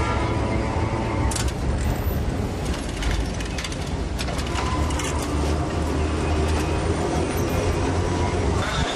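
Electric tram running: a steady low rumble with scattered clicks and rattles.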